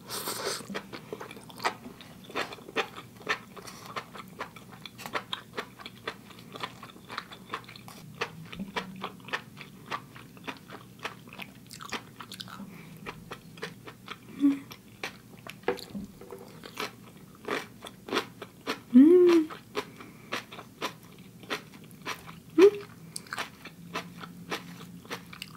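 A person chewing and biting sauced mushrooms, with a steady run of small wet mouth clicks and crunches. A few short hums come about midway and near the end, the loudest around three-quarters through.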